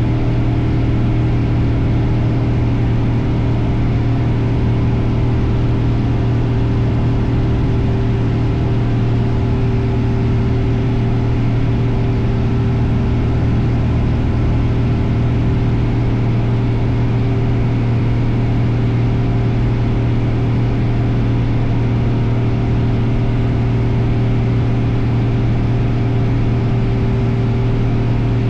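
Cessna light aircraft's piston engine and propeller running at a steady power setting, a loud, even drone with a strong low hum that does not change.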